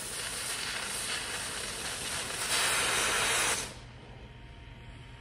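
Oxyacetylene cutting torch hissing steadily as its cutting-oxygen jet blows through steel plate; the hiss grows louder about two and a half seconds in, then drops sharply a little past three and a half seconds to the much softer hiss of the preheat flame as the cutting oxygen shuts off.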